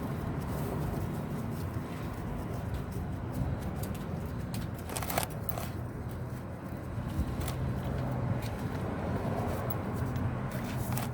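Steady low rumble of a motor vehicle running, with a few sharp metallic clicks as the oil drain nut is worked loose with a socket.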